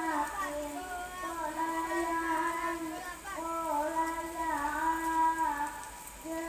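Young, high voices singing a melody in long held notes that step up and down in pitch.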